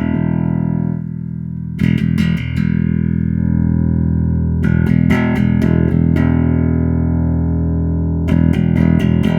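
Electric bass played through an Ashen Amps APG1000.2 bass head, with the blend set partway so that preamp is mixed in with the clean DI. Long notes are struck about 2, 5 and 8 seconds in and left to ring.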